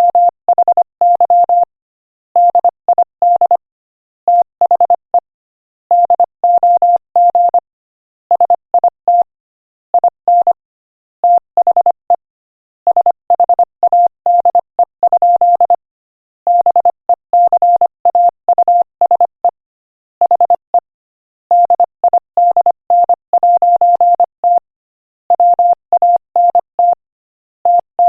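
Morse code sent at 25 words per minute: a single steady beep keyed on and off in short dots and longer dashes, grouped into letters and words with brief pauses between them.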